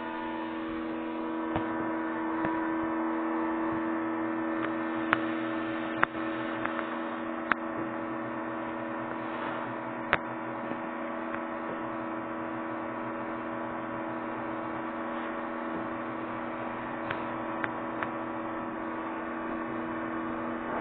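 Vacuum cleaner running steadily, a constant motor hum over a rush of air, with a few sharp clicks about five to ten seconds in.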